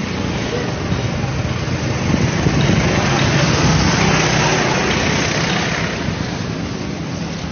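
Go-kart engine passing close by, growing louder to a peak about three to five seconds in and then fading away.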